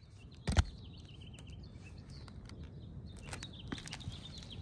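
A single short knock about half a second in, then quiet outdoor ambience with faint bird chirps.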